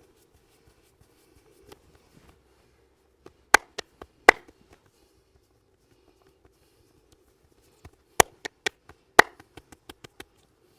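Sharp smacks and pops of a hands-on massage in two quick bursts of about four strikes each. The second burst trails off into lighter taps.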